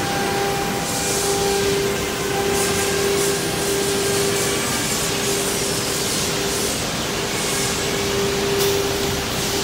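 CNC router's 9 kW HSD spindle running with a steady whine as it cuts a board, the cut hissing in repeated surges.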